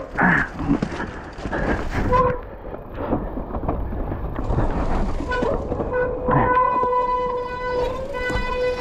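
Mountain bike descending a wet, rocky, muddy trail: the bike clatters and rattles over the ground, and a steady horn-like hum comes and goes, holding from about halfway through to the end.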